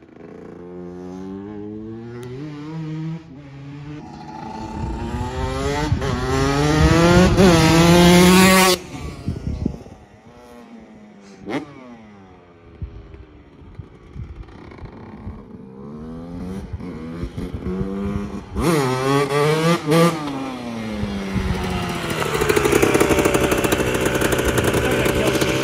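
Yamaha YZ125 two-stroke dirt bike engine being ridden hard: the revs climb in steps for several seconds and cut off sharply about nine seconds in, followed by a few short throttle blips. The revs then climb again, and the bike runs loud and close near the end.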